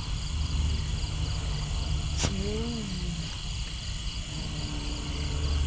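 Night chorus of crickets chirping in a steady pulsing rhythm, with frogs croaking low underneath. A sharp click and a brief murmured voice sound about two seconds in.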